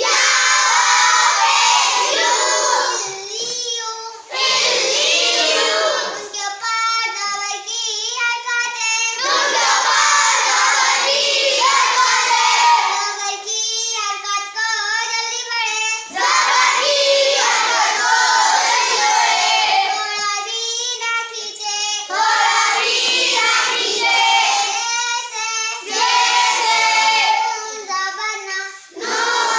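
A child reciting Arabic words aloud in a sing-song chant, in short phrases with brief pauses between them.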